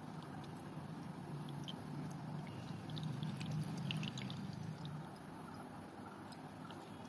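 Whey trickling in a thin stream from a squeezed cloth bundle of yogurt through a mesh strainer into a bowl, with scattered small drips and splashes. A low hum runs underneath and grows a little louder in the middle.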